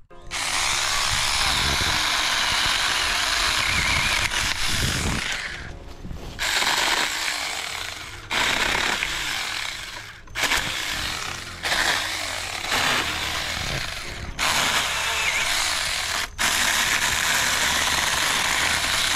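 Saker 4-inch mini cordless electric chainsaw running at speed, its chain and motor giving a loud, steady whine. It runs unbroken for about five seconds, then in shorter spells, the trigger let off and squeezed again about half a dozen times.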